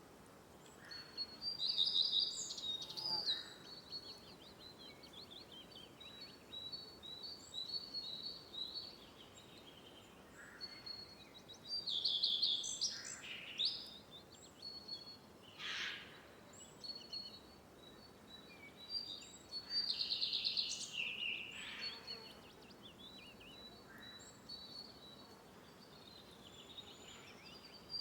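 Small birds singing: a thin run of short high chirps, broken by louder bursts of twittering song about two seconds in, around twelve seconds and around twenty seconds.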